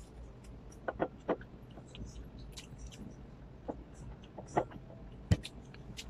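Close-up eating sounds: a person chewing and smacking her lips while eating with her fingers, heard as a scattering of short wet clicks, with a sharper knock about five seconds in.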